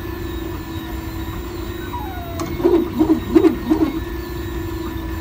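MakerBot 3D printer printing: a steady hum, with a quick run of four louder warbling pulses about two and a half to four seconds in.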